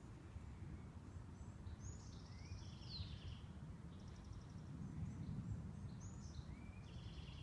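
A songbird singing short high phrases with rising sweeps and trills, about three times, faint over a steady low rumble.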